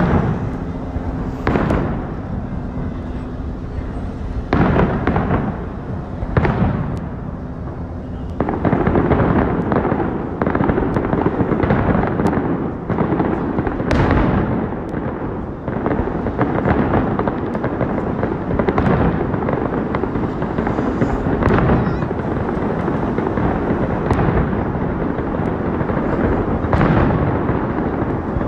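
Aerial fireworks going off overhead: a few separate booms in the first seconds, then, from about a third of the way in, a dense, continuous crackling and popping of many bursts at once, with a few louder bangs standing out.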